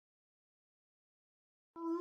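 Dead silence, then near the end a dog starts a long howl, one clear pitched tone that rises slightly as it begins.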